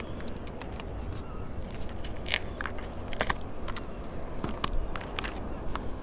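Irregular crackles and sharp clicks of a packet and backing card being handled as a set of mackerel feathers is unwrapped, over a low steady rumble.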